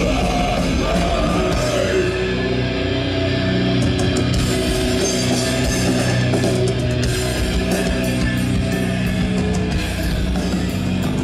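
Heavy metal music with guitars, playing steadily and loud.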